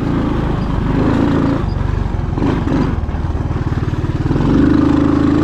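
A 1980 Honda ATC185 three-wheeler's single-cylinder four-stroke engine running while it is ridden, the revs rising and falling. It is loudest as it revs up near the end.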